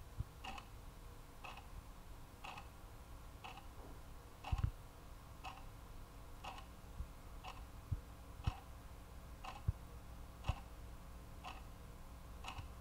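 A clock ticking steadily, about once a second, with a few dull low thumps, the loudest about four and a half seconds in.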